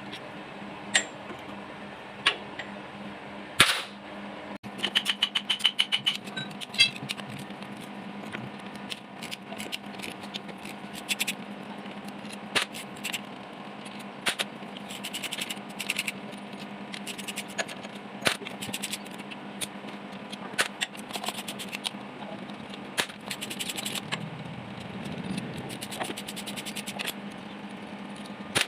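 Metal tools being worked on a Kubota diesel engine: scattered sharp metallic clinks and knocks, with several runs of rapid, evenly spaced clicking, over a faint steady hum.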